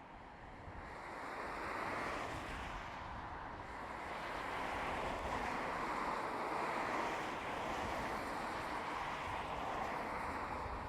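Wind gusting: a steady rushing that swells about a second in, then rises and falls.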